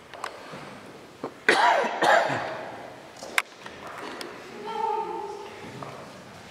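Two loud coughs about a second and a half in, echoing in a large church, followed by a sharp click and, a little later, a short voiced sound.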